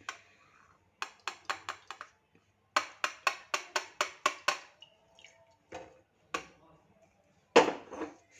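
Sharp taps of a strainer knocked against a glass jar to shake the strained oil through: quick runs of about five taps a second, then a few single taps, and the loudest knock near the end.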